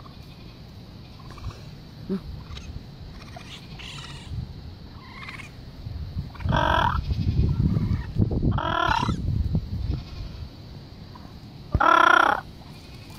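Three loud, warbling animal calls, each about half a second long with a wavering pitch. The first comes about six and a half seconds in, the second about two seconds later, and the loudest near the end.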